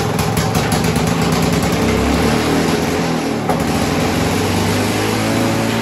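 Victa Silver Streak two-stroke lawn mower engine, just started on the first pull of the recoil cord, running fast and steady without dropping back to idle, which the owner suspects is from an unsealed vacuum line at the carburettor.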